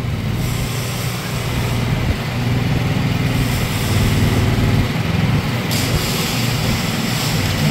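The engine of a Chinese-made mini excavator running steadily as the machine is driven forward on its tracks. It gets a little louder about two and a half seconds in, and a higher hiss joins near the end.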